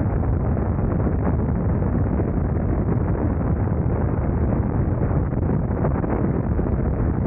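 Steady wind rush on the microphone with the BMW R nineT Scrambler's boxer twin engine running at an even cruise. The noise holds level throughout, with no gear change or rev rise.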